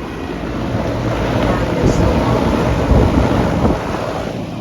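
A rush of moving air buffeting the microphone, swelling to a peak about three seconds in and then easing off.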